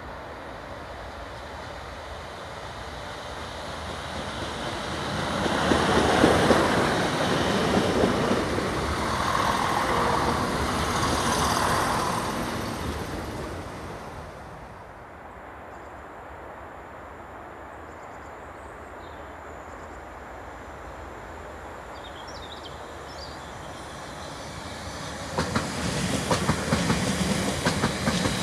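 A passenger train passes, its running noise swelling from about four seconds in and dying away by about fifteen seconds. Near the end a Class 350 Desiro electric multiple unit passes close by, its wheels clattering rhythmically over the rail joints.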